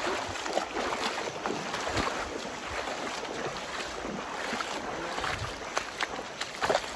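River water rushing, a steady hiss, with scattered faint clicks over it.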